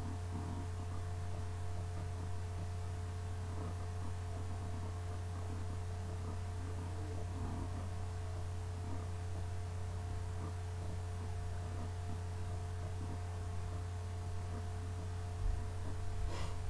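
Steady low electrical hum with two faint, steady higher tones above it. A couple of soft knocks or clicks come near the end.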